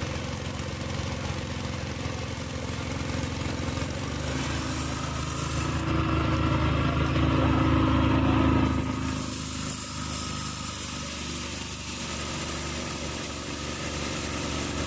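Engine of a rail-cutting grinder running steadily, getting louder for about three seconds around the middle and then settling back.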